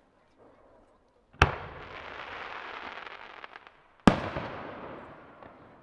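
Aerial firework shells bursting: two loud booms about two and a half seconds apart, the first followed by a couple of seconds of hiss with a few crackles near its end.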